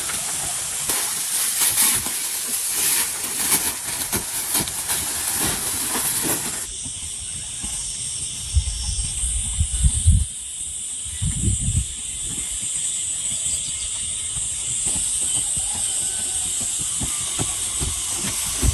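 Steady hiss of rain, with wind gusts rumbling against the microphone in the second half.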